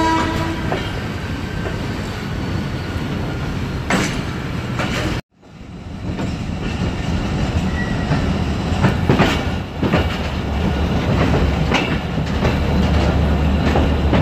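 Passenger train coaches rolling along the track, heard from an open carriage window, with wheels clacking over rail joints now and then. The end of a train horn carries into the first second. The sound cuts out for about half a second about five seconds in.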